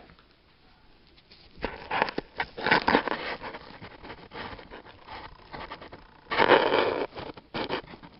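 Handling noise from a camera being set in place: rustling, scraping and knocks, loudest in a stretch about two seconds in and again in a shorter burst about six and a half seconds in.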